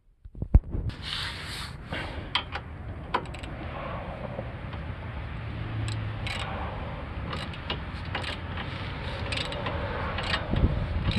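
Irregular mechanical clicking and rattling over a steady low rumble.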